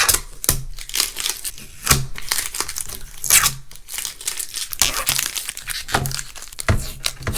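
Stickers being peeled off a glass tabletop by hand: irregular tearing and crinkling as the paper comes away, with scattered sharper rips.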